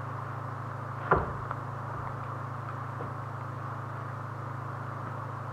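A single sharp wooden knock about a second in, followed by a few faint taps, as a wooden floor joist is handled and set in place, over a steady low hum.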